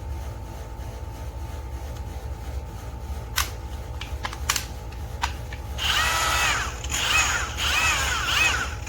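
A few sharp clicks, then a DeWalt 20V MAX cordless grinder motor run in about three short bursts near the end, its whine rising and falling in pitch with each one.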